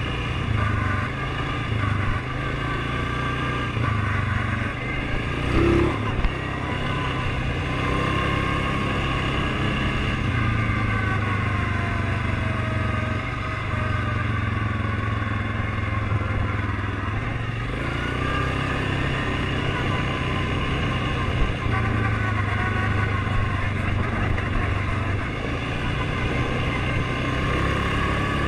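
ATV engine running under way, its pitch drifting gently up and down with the throttle, with a single thump about six seconds in.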